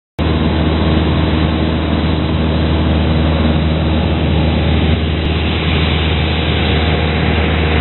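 Cessna 172's piston engine and propeller droning steadily in cruise, heard from inside the cabin.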